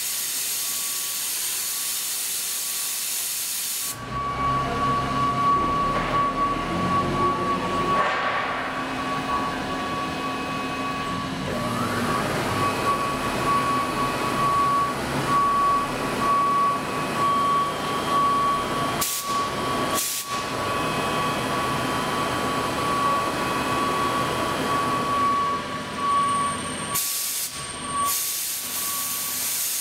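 CNC lathe turning and grooving an aluminium part under coolant spray. A steady hiss of coolant opens and closes the sound; in between, the cutting noise comes in with a low rumble and a steady high whine, with two brief breaks about twenty seconds in.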